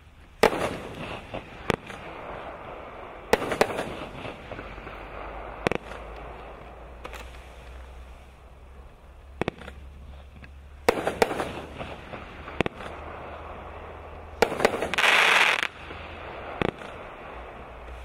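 A 350-gram, 21-shot King Bird 'Monster Truck' fireworks cake firing: a string of sharp shots and bursts spaced a few seconds apart, each trailing off into a fizzing haze. A louder burst lasting about a second comes roughly fifteen seconds in.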